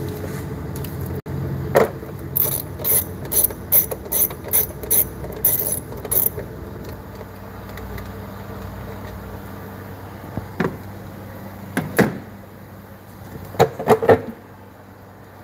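Hand ratchet turning a 10 mm nut off, a quick run of about a dozen clicks. Then a few knocks near the end as the plastic engine cover is lifted off.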